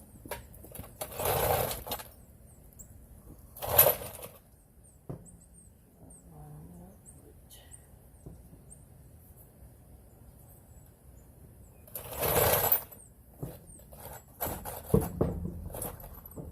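A cordless power tool run in short bursts of about a second, three times, followed near the end by a run of sharp metallic knocks and clatter.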